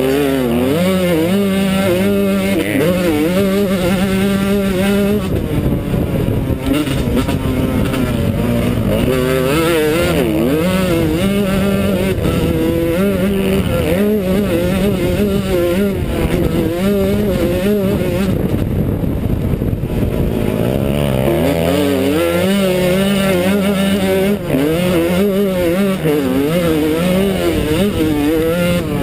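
Yamaha YZ125's single-cylinder two-stroke engine racing flat out on a motocross track, revving hard and falling off again and again, its pitch rising and dropping constantly as the rider works the throttle and gears.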